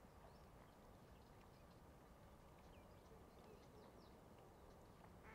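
Near silence: faint outdoor ambience with a low rumble and a few faint, short chirps from distant birds.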